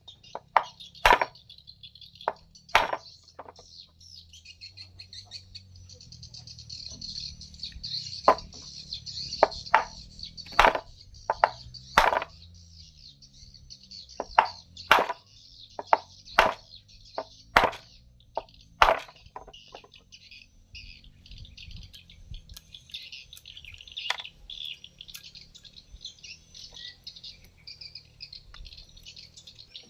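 Birds chirping and chattering without a break, with a string of sharp knocks cutting through, most of them in the first twenty seconds.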